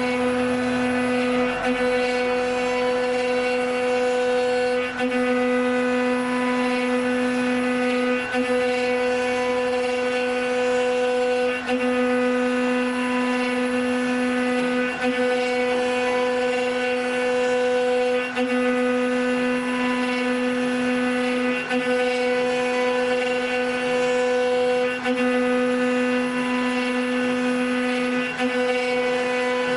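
Multi-spindle 4-axis CNC wood router running, its spindle motors giving a steady high whine with a brief dip roughly every three seconds.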